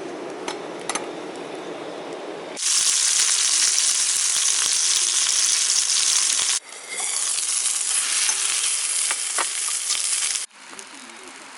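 Food sizzling in a hot pan: a loud, even sizzle in two stretches that start and stop abruptly, with a quieter low hiss and a few clicks before it.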